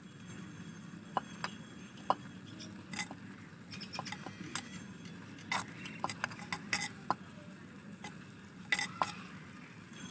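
Perforated steel ladle stirring cut raw mango pieces in a clay pot to mix in chilli powder, with irregular clicks and taps of metal against the earthenware.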